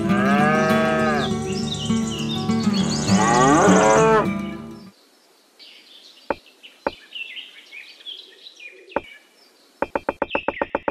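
Cow mooing twice over background music, in long calls that rise and fall. After the music stops, a few light clicks of miniature clay bricks being set down on sand, with faint bird chirps. Fast plucked notes start near the end.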